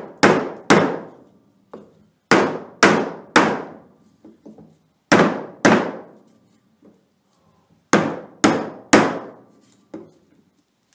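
A hammer strikes a wooden block to drive a new bearing race into an NP205 transfer case idler cluster gear. The sharp blows come in groups of two or three about half a second apart, each ringing briefly.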